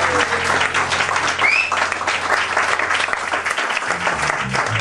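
Audience clapping steadily after an acoustic string band's song ends, while the band's last low note fades out about three and a half seconds in. A short rising whistle comes from the crowd about one and a half seconds in.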